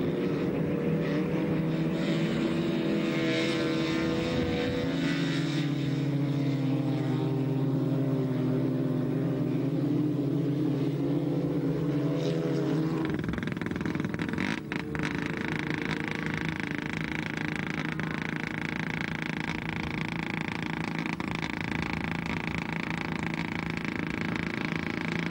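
Racing car engines running hard as cars go by on the ice track, their pitch shifting slowly. About halfway through the sound changes abruptly to a steadier noise.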